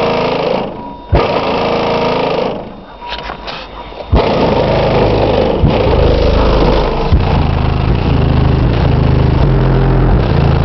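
Aftermarket car stereo playing music loud through a subwoofer, heavy with deep bass notes that change pitch every second or two. The sound drops away briefly twice, each time ending in a thump, about a second in and about four seconds in. After that the bass is at its loudest, heard from inside the cabin.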